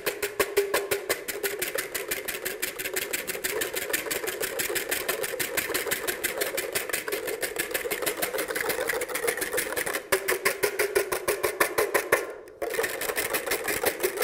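Wire whisk beating egg whites in a glass mixing bowl by hand, its wires clicking against the bowl in a fast, steady rhythm of several strokes a second, with a brief pause near the end. The whites are being whipped toward meringue.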